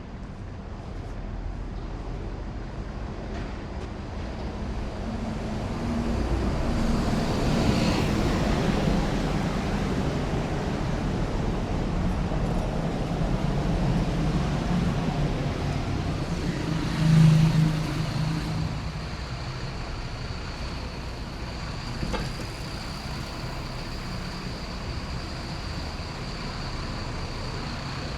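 Busy city street traffic: cars and buses passing. The sound swells through the middle, with one brief loud burst from a passing vehicle a little past halfway. A thin, steady high tone runs through the last third.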